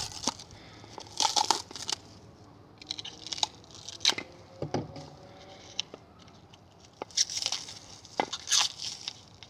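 Packaging being torn and opened by hand: irregular bursts of tearing and crinkling, with a few sharp clicks between them.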